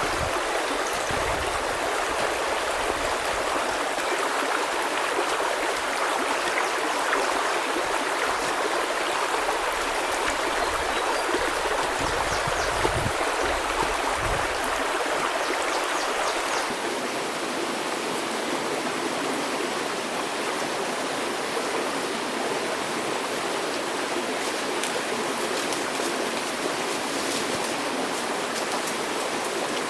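Stream water running with a steady rushing, babbling sound. It changes slightly in tone a little past halfway, and there are a few soft low bumps in the first half.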